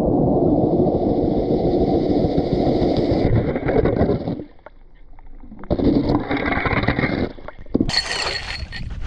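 Cordless drill spinning a steel ice auger, grinding through lake ice. The grinding drops away about four and a half seconds in, picks up again a second later, and is brighter with a high whine in the last second.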